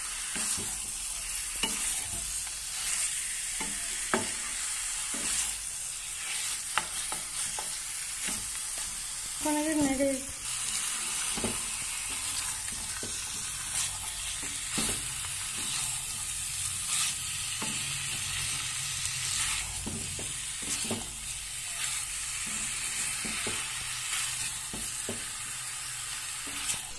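Masala-coated chicken and potato pieces sizzling in hot oil in a frying pan, stirred and turned with a wooden spatula that scrapes and knocks against the pan. This is the long dry-frying stage, before any water goes in. A brief wavering tone sounds about a third of the way in.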